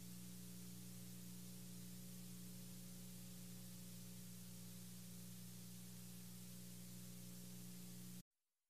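Near silence: a faint steady electrical hum under a soft hiss, the noise floor of the recording. It cuts off to complete silence near the end.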